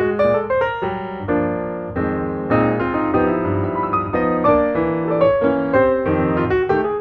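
Background piano music: a melody of quick notes over sustained chords.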